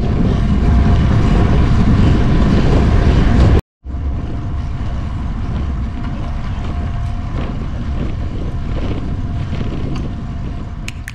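Wind rushing over the microphone of a camera carried on a road bike while riding, a loud steady low rush. It cuts out completely for a moment about three and a half seconds in.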